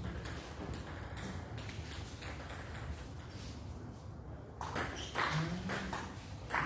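Table tennis balls clicking off bats and tables: scattered clicks at first, coming thicker and quicker for the last two seconds.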